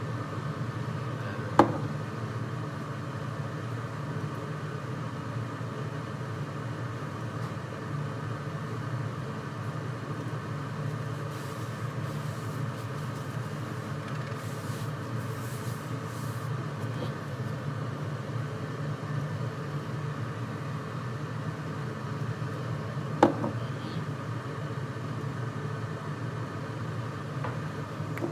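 Steady mechanical hum of a running appliance, with two sharp knocks, one about a second and a half in and the other near the end.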